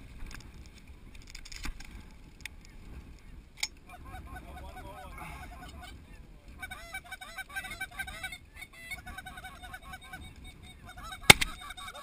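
Snow geese calling: many short, high honks overlapping, sparse at first and growing dense from about four seconds in. Near the end a single sharp, loud click stands out above the calls.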